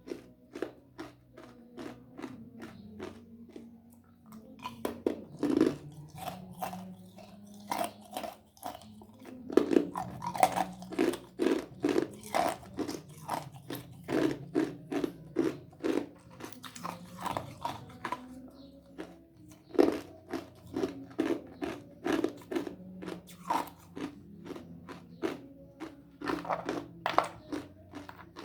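Ice being crunched and chewed between the teeth close to the microphone: a long run of sharp crunches, about two a second, some of them loud.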